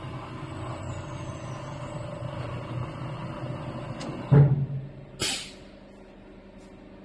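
Vertical broaching machine running with a steady hum, then a heavy clunk about four seconds in and a short hiss about a second later, after which the hum is quieter.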